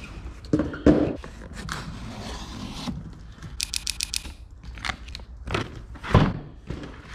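Cardboard product box being handled on a table: scrapes and knocks, a few sharp thuds, and a quick run of clicks about three and a half seconds in.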